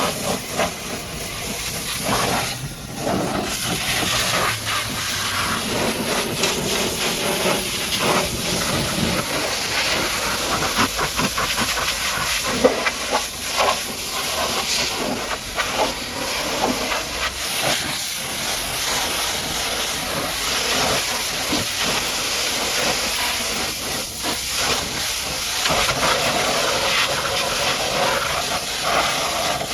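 High-pressure washer jet spraying water onto a truck, a steady loud hiss that wavers as the spray moves over the surface.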